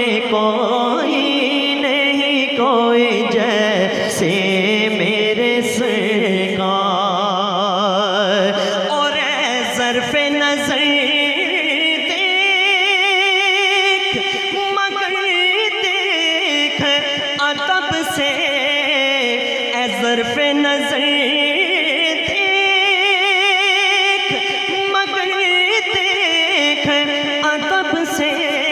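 A man singing a naat into a microphone: long drawn-out, melismatic notes with a wavering vibrato, the pitch gliding slowly up and down.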